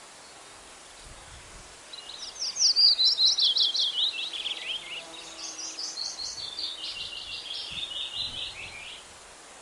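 A songbird sings a long, rapid song of short falling notes, starting about two seconds in and running in two phrases, over a steady background hiss of forest ambience.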